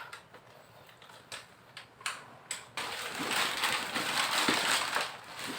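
Handling noise of a fabric luggage bag as an item is pushed into it to see whether it fits: a few soft knocks and clicks, then continuous rustling and scraping of the fabric from about three seconds in.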